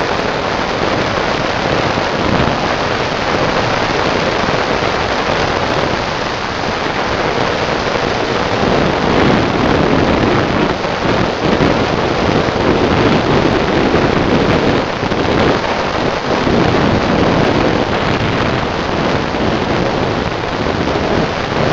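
Steady, loud wind rush over the microphone of a Piaggio NRG Extreme 50cc two-stroke scooter ridden near top speed, about 85–90 km/h. Underneath it, the engine with its Yasuni R exhaust is running flat out, largely masked by the wind.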